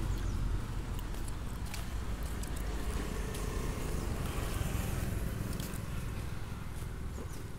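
Road traffic of motor scooters and motorcycles passing, under a steady low rumble of wind on the microphone.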